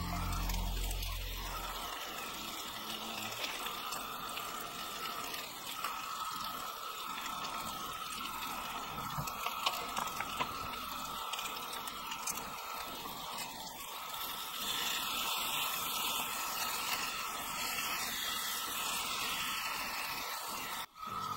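Bacon sizzling and spitting in a cast-iron skillet over a vintage Coleman 502 gasoline camp stove, a steady frying hiss with small pops. The sound cuts out for an instant near the end.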